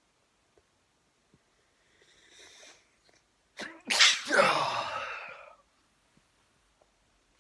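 A man sneezing once, loudly. A breathy wind-up of in-breaths comes about two seconds in, then a quick catch of breath and a full voiced sneeze, which trails off over about a second and a half.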